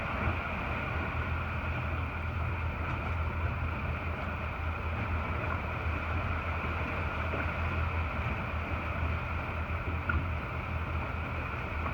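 Steady hum of a boat under way on the water, a motor drone with water and wind noise, unchanging throughout.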